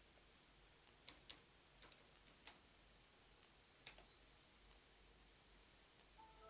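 Near silence: quiet room tone with a few faint, scattered clicks, the sharpest about four seconds in.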